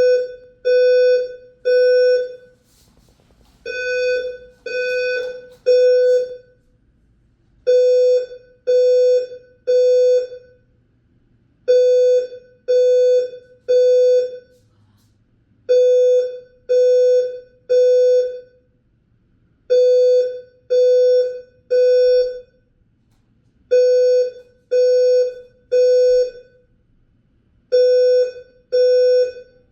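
Condo building fire alarm sounding a loud, low, buzzy beep in groups of three, with a pause after each group and the group repeating about every four seconds. This is the temporal-three evacuation signal.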